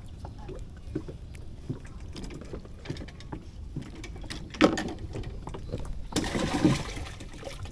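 Handling noises of a freshly caught catfish on a small wooden-decked boat: scattered light clicks and knocks, a sharp knock about four and a half seconds in, and a rushing, splashing or rustling noise lasting about a second, some six seconds in.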